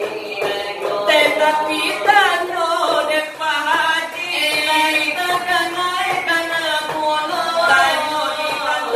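Selawat dulang, Minangkabau Islamic devotional singing: voices chant a continuous melody with many sliding, ornamented pitch bends.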